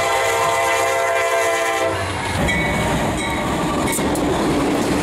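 A diesel freight locomotive's air horn sounds a multi-note chord for about two seconds and stops abruptly. Then comes the rumble and wheel-on-rail noise of a freight train rolling past, with a few sharp clanks.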